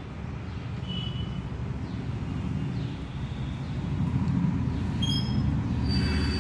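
A steady low rumble that grows a little louder partway through, with a few brief high-pitched chirps over it.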